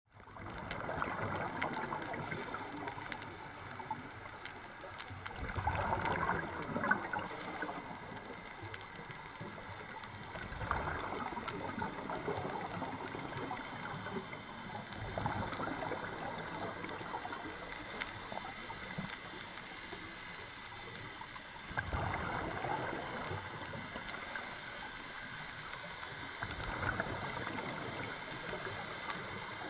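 Underwater recording of a scuba diver breathing through a regulator: bubbling, gurgling exhaust surges every five seconds or so over a steady underwater hiss.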